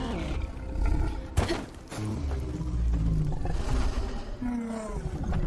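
Fantasy-film dragon growling and rumbling, with a sharp crack about a second and a half in and low, falling growl calls near the end, over background music.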